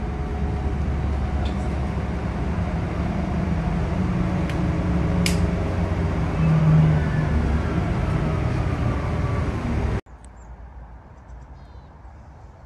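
Road traffic on a city street: steady engine rumble and tyre noise, swelling louder as a vehicle passes about six or seven seconds in. About ten seconds in it cuts off abruptly to a much quieter outdoor ambience with a few faint chirps.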